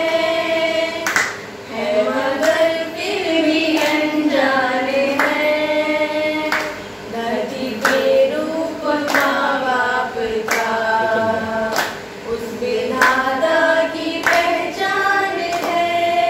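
Several women singing a song together without instruments, with hand claps keeping a slow, even beat.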